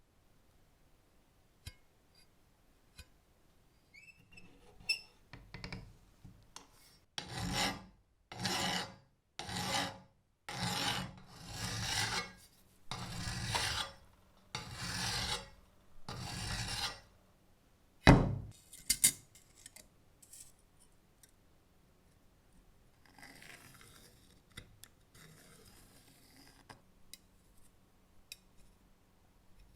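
Hand filing: a run of about ten long rasping strokes, roughly one a second, then a single sharp knock, followed by fainter scraping.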